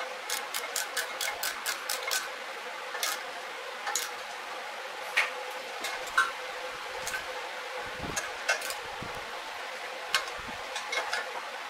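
Ratchet wrench clicking as it tightens the manifold bolts: a quick run of about five clicks a second for the first two seconds, then scattered clicks. A steady hum runs underneath.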